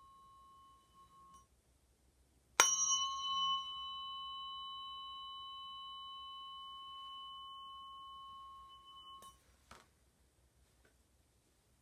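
Tuning forks for Biofield Tuning: a previous ring dies away about a second in, then a fork is struck with a sharp ping and rings with a clear steady tone for about six seconds before being stopped with a few soft clicks.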